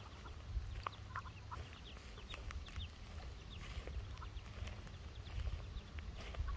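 Ducklings and goslings peeping: many short, high chirps scattered throughout, over a steady low rumble.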